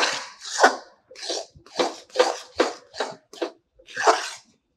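Metal spoon scraping and stirring thick, wet halwa in a metal kadai, in quick repeated strokes about two to three a second. The mixture is being cooked down after water has been added, before the sugar goes in.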